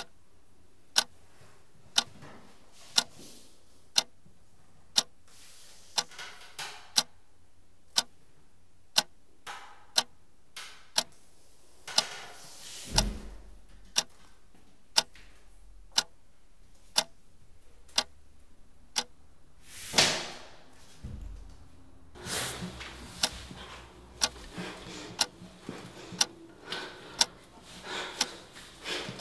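A clock ticking steadily, once a second. A low thump comes about thirteen seconds in, a loud rushing noise about twenty seconds in with a thump just after, and scuffing and rustling run under the ticks near the end.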